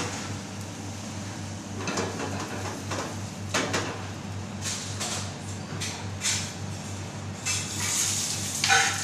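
Metal frying pans clattering and scraping on a gas range over a steady low hum. Near the end a louder hiss rises as a pan flares up in flame.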